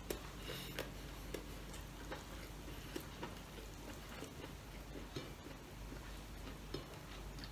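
Quiet eating by hand: faint scattered clicks and taps as rice and pork adobo are worked with the fingers on a ceramic plate, over a steady low hum.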